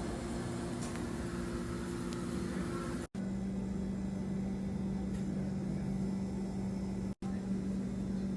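A steady low mechanical hum with a faint hiss, broken twice by a split-second dropout to silence, about three and seven seconds in.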